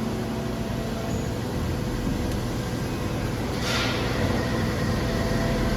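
Hydraulic injection molding machine running with a steady low hum from its hydraulic pump motor, with a short hiss about three and a half seconds in.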